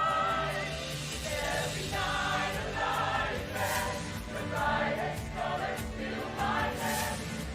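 Choir singing: a held note with vibrato fades just after the start, then the voices move on in short, quickly changing sung phrases.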